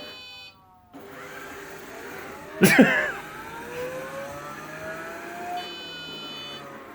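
Off-brand robot vacuum running, its motors whirring with slowly sliding changes in pitch as it drives and turns. A brief loud sound about two and a half seconds in, and a steady high electronic tone starting near the end.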